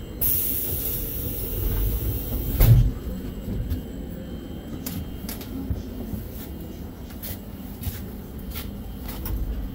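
Passengers boarding a train: a hiss starts just after the beginning and runs for a couple of seconds, a single loud thump comes about two and a half seconds in, then scattered clicks and knocks follow in the carriage doorway, over a low station rumble.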